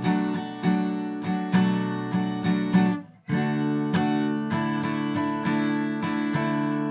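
Acoustic guitar strumming chords in a steady rhythm, breaking off briefly about three seconds in before the strumming picks up again.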